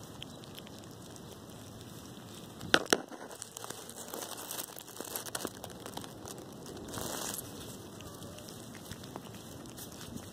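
Miniature schnauzer puppies chewing and gnawing raw chicken on the bone, a run of small wet crackling and crunching clicks. A single sharp knock about three seconds in is the loudest sound.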